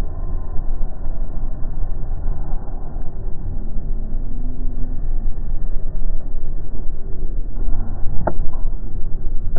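Car driving, heard from inside the cabin through a dashcam's microphone: a steady low rumble of engine and road noise, with one sharp click a little over eight seconds in.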